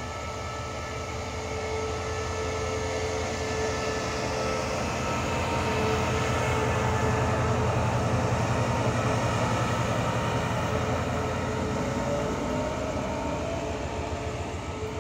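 CRRC Qishuyan (QSY) diesel-electric locomotive pulling away from a stop and passing close by, its engine running steadily. It gets louder to a peak about halfway as the locomotive goes past, then eases off as the coaches roll by, with a faint rising whine near the end.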